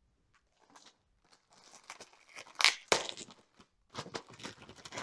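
Clear plastic bag crinkling and rustling as a mesh Wi-Fi unit is pulled out of it, in irregular crackles that are loudest about halfway through.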